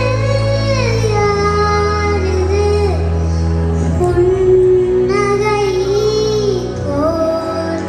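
A young girl singing into a microphone over instrumental accompaniment, holding long notes that slide down in pitch, with steady low bass notes underneath.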